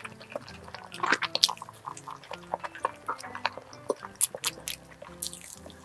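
Close-up wet, squishy chewing and mouth sounds of eating a cream-filled crepe 'towel cake', many small smacks and clicks. Soft background music plays underneath.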